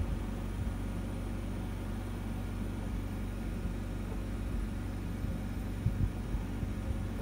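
Steady low mechanical hum of a deep-diving submersible's onboard machinery, heard from inside the cabin, with a few dull low thumps about six seconds in.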